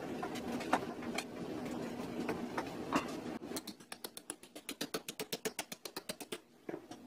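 Screwdriver turning a small screw into a plastic prop pistol, with a few scattered clicks and scrapes over a steady hum. About three and a half seconds in, a fast even run of sharp clicks starts, about nine a second, and stops shortly before the end.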